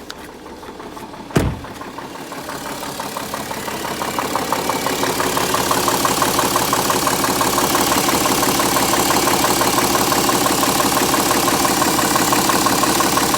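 BMW N57 straight-six diesel idling with a knock, the fault the owner is showing. A sharp thump about a second and a half in, then the engine grows louder over the next few seconds and runs on steadily.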